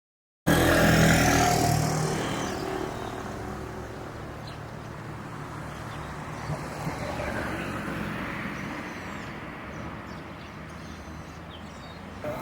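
A vehicle passes close by about a second in and fades away over the next few seconds, leaving a steady background hum of road traffic.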